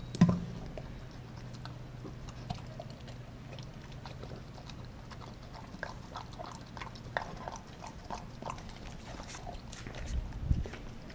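Dog eating a raw meal from a stainless steel bowl: chewing, crunching and licking with many small clicks against the bowl. A sharp knock about a quarter-second in, as the frozen turkey steak is dragged out of the bowl, and a low thump near the end.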